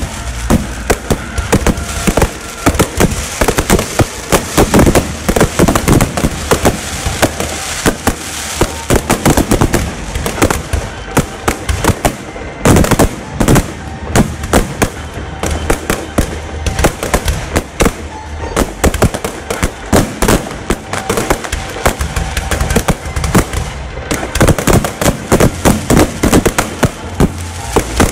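Aerial firework shells bursting very close overhead in a continuous barrage: heavy bangs several times a second over a steady crackle and hiss.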